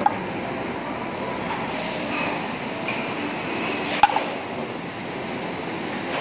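Steady restaurant background noise, with a sharp clink right at the start and another, louder one about four seconds in.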